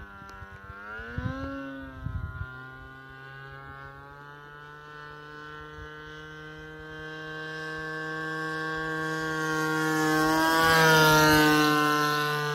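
Small two-stroke gasoline engine of a radio-controlled model airplane in flight, with a steady buzz. Its pitch dips and rises again about a second in, then it grows steadily louder as the plane comes close, loudest shortly before the end. Wind gusts hit the microphone in the first two seconds or so.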